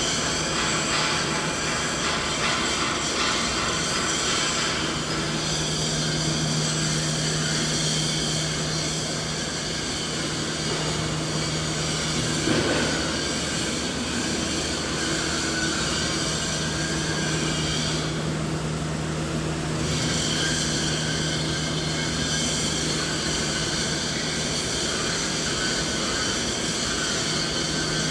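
Continuous machinery noise: a steady mechanical drone with a low hum and several fixed tones over a wide hiss. The hiss briefly thins out about two-thirds of the way through.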